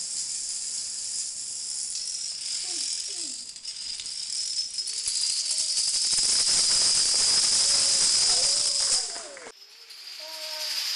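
Plastic dominoes toppling in a chain: a dense, high clatter of many small pieces that grows louder as a tall wall of stacked dominoes falls, then breaks off suddenly near the end.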